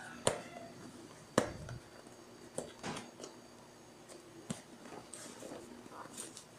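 Sparse crinkling and rustling of a parcel's wrapping being handled and picked at by hand while trying to tear it open, with a few sharp clicks, the loudest about a second and a half in.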